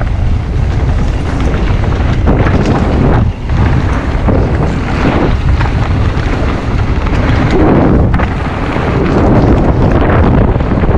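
Wind buffeting an action camera's microphone over the rumble and rattle of an electric mountain bike's tyres and suspension on a fast trail descent. The noise is loud and steady, with a brief dip about three seconds in.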